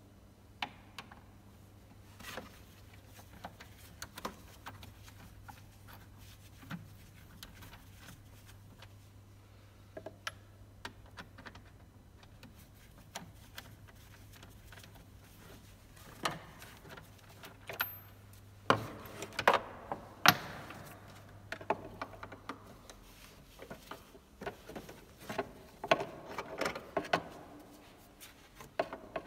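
Hands and a tool working on parts in a car's engine bay: scattered clicks, knocks and rattles of plastic and metal, busiest in two clusters past the middle and near the end. A steady low hum underneath stops about three quarters of the way through.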